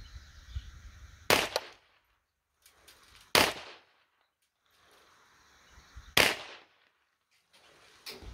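Ruger Mark III Hunter .22 LR pistol firing single shots: three sharp cracks about two to three seconds apart.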